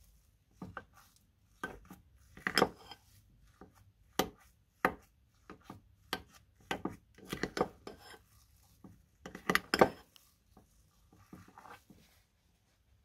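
Metal spoon stirring and scraping a gritty mix of glitter glue and fake snow in a cut-glass bowl: irregular clinks and scrapes of metal on glass, loudest about two and a half seconds in and again around ten seconds in.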